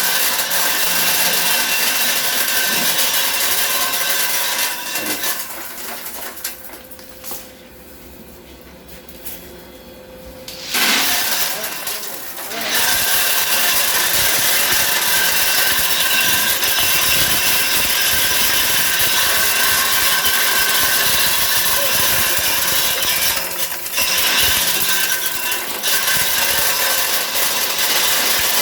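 Candlenut cracking machine running, with a dense clatter of nuts and shells over a steady motor hum. It dies down to a much quieter stretch about six seconds in, then comes back to full level a few seconds later.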